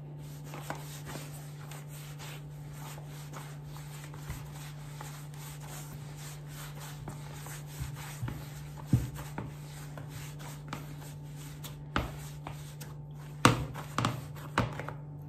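Hands kneading a soft flour dough in a bowl: steady rubbing and squishing, with several sharper knocks in the last few seconds as the dough is pushed and turned against the bowl. A steady low hum sits underneath.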